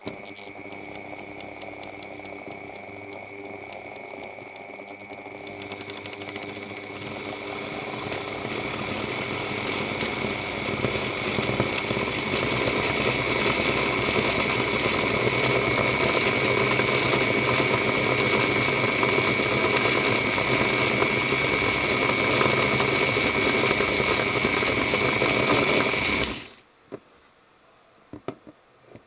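Ozito rotary tool running and driving a 3D-printed gear train on ball bearings that spins a miniature circular saw blade, with a steady high whine. It grows louder over the first ten seconds or so, holds steady, then cuts off suddenly about 26 seconds in, followed by a few faint clicks. The mechanism is running as intended.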